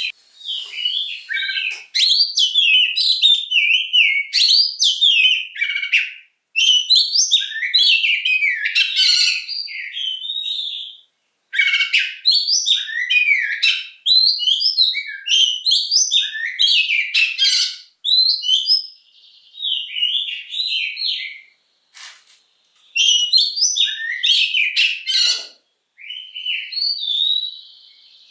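Oriental magpie-robin (kacer) singing: long phrases of rapid, varied whistles and chirps, broken by short pauses every few seconds.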